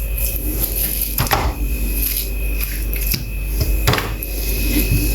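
Chicken leg pieces being mixed by hand into a yogurt and spice marinade in a bowl. A few sharp knocks come about a second in and again near four seconds in, over a steady low hum.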